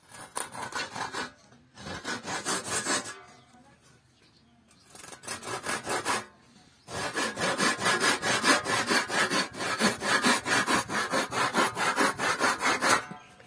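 Hand saw cutting into a wooden block in quick, short strokes, in four bouts with brief pauses; the last bout is the longest, about six seconds.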